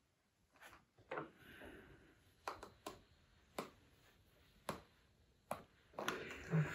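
Quiet handling of cotton fabric and a clothes iron on a padded pressing surface: a handful of soft taps spaced a second or so apart, with a brief rustle, as a folded edge is pressed flat.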